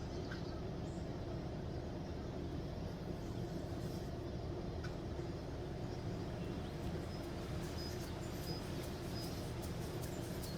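Steady low outdoor background rumble, with a few faint short high chirps in the second half.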